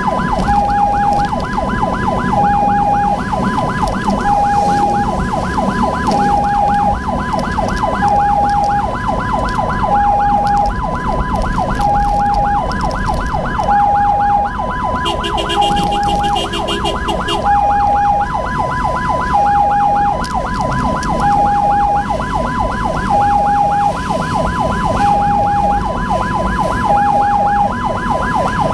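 Ambulance siren sounding continuously: a hi-lo two-tone, changing note about every 0.8 seconds, over a fast repeating yelp, with the vehicle's road and engine rumble beneath. A short extra tone cuts in briefly about halfway through.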